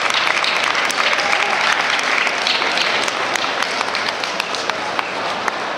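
Crowd applauding, a dense patter of many hands clapping that eases slightly toward the end.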